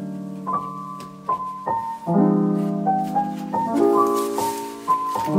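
Background piano music: gentle chords and melody notes struck every second or so and left to ring.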